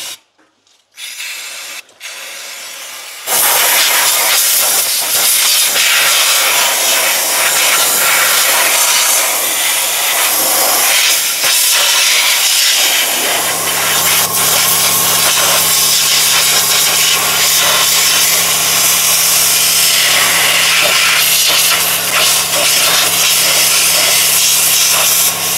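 Aerosol cleaner spraying in a long, continuous hiss as oil residue is cleaned off the engine bay, faint at first and loud from about three seconds in. A steady low hum comes in about halfway through.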